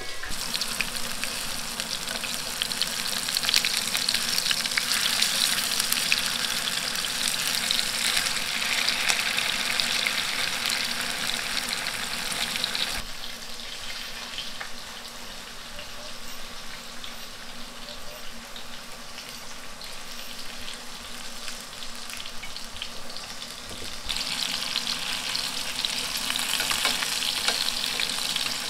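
Slabs of tofu frying in hot oil in a nonstick pan, sizzling and crackling steadily. The sizzle drops in level about halfway through and comes back louder near the end.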